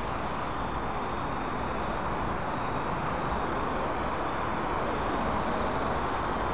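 Steady, even rushing noise of outdoor ambience, with no distinct event standing out.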